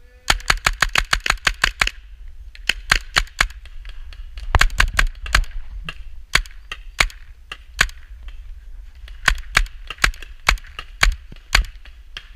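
Paintball markers firing: a rapid string of about a dozen shots in under two seconds at roughly eight a second, then further short bursts and single shots with brief pauses between them.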